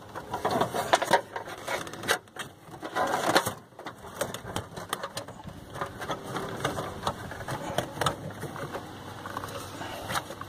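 Hands working among rubber hoses and clutch hydraulic pipework in a car's engine bay: irregular clicks, taps and rustling as parts are pulled and handled.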